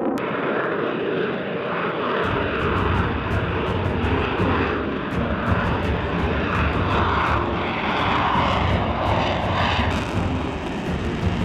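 F-35B Lightning II's jet engine running loudly, a dense rushing noise with crackle, deepening into a low rumble about two seconds in.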